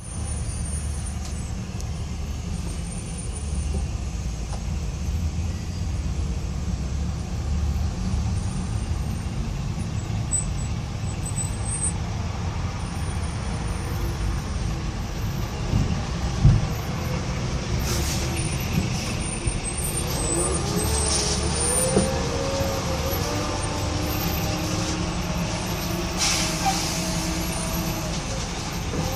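Road noise from a car driving in traffic through the Queens Midtown Tunnel: a steady low rumble of tyres and engines, with one sharp thump about halfway. In the last third an engine whine rises and then holds steady, with a couple of short hisses.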